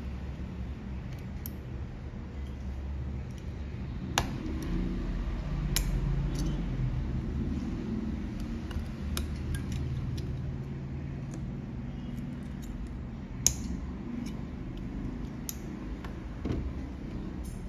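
Hand tools clicking and scraping on the metal RAM shield of a Samsung M30s logic board as it is cut away: scattered sharp clicks, the loudest about four, six, thirteen and fifteen seconds in, over a steady low hum.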